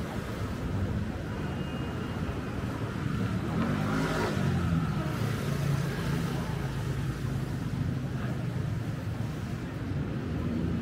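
Street traffic: a motor vehicle passes close about four seconds in, its engine hum swelling and then fading over the next few seconds, over steady road noise.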